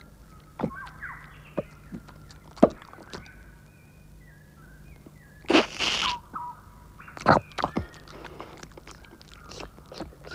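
Cartoon sound effects: a few sharp knocks, faint high warbling squeaks, and a short loud hissing burst about five and a half seconds in, followed by another knock.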